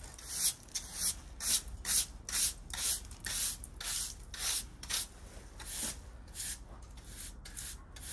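A broom sweeping a floor in regular swishing strokes, about two a second, a little weaker in the last few seconds.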